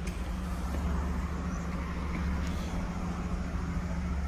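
Steady low rumble of street traffic heard from an apartment balcony.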